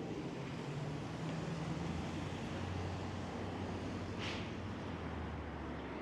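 City street traffic noise with a vehicle engine's low, steady hum, and a brief hiss about four seconds in.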